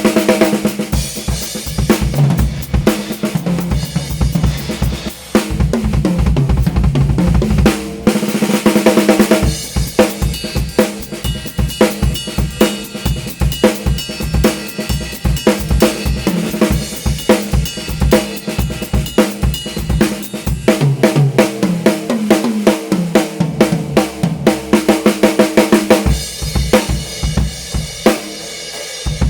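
Drum kit played continuously with dense, fast strokes on snare, bass drum, hi-hat and cymbals; the snare is a Thai-made solid-wood drum whose shell is hollowed from a single block of wood.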